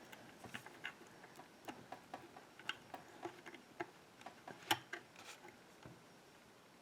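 Faint, irregular light clicks and ticks from small metal tools being handled at a Euro cylinder lock, the loudest about four and a half seconds in.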